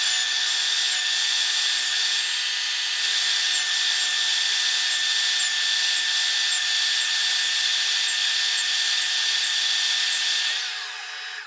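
Job site table saw with a flat-top-grind blade running at full speed, a steady motor whine while waste is nibbled out between the dovetail cuts. Near the end the saw is switched off and winds down, its whine falling in pitch.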